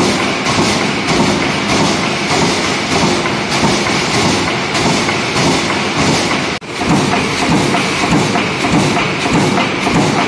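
A 160-ton CNC hydraulic punching press punching rows of small round holes in thin steel sheet, stroking in a fast, even clatter as the sheet is fed through. The sound breaks off for an instant about six and a half seconds in, then carries on.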